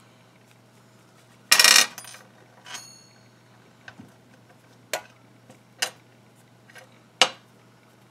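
Small metal objects clinking and clattering on a hard surface: a loud clatter about a second and a half in, a short metallic ring, then three sharp clicks spread over the last few seconds.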